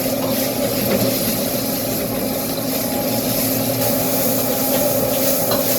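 Food frying on a stall's stove: a steady hiss over a low, even hum.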